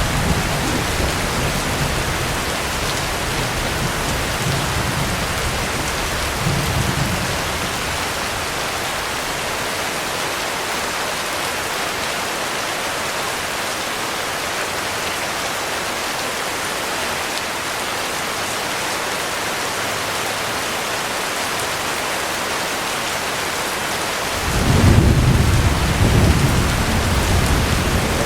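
Heavy rain falling steadily, with a thunder rumble dying away in the first several seconds. Near the end a new roll of thunder starts suddenly and is the loudest sound.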